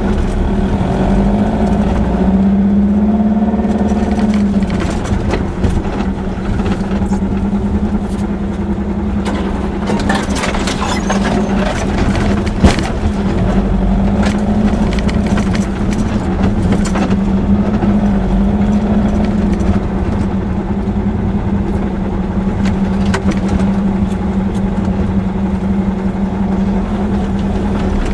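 VW Baja Bug's air-cooled flat-four engine running steadily, heard from inside the cabin while driving a rough dirt track, its note rising briefly a few seconds in. The body rattles over the bumps, with a sharp knock about halfway through.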